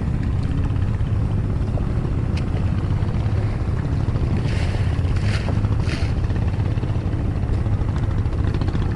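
A small boat's engine running steadily, a constant low rumble, with a few brief hissing noises about halfway through.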